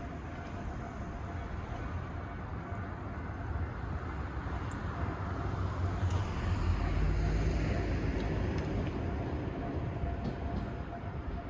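Electric train running past on the line, a low rumble that builds to its loudest about seven seconds in and then begins to ease off.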